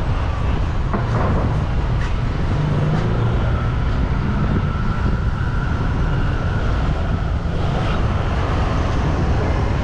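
Street traffic noise: a steady mix of passing vehicle engines and tyres, with a heavy low rumble.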